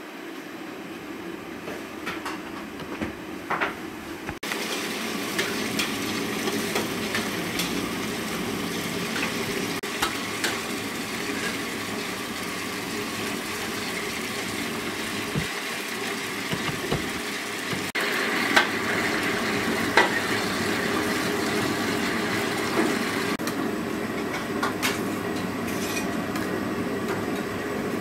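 Food-stall kitchen sounds: a steady hiss with scattered clinks and knocks of dishes and utensils.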